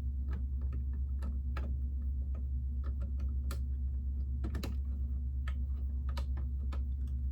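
Small hard plastic clicks and taps at irregular intervals as Lego pieces are handled and pressed onto the model, over a steady low hum.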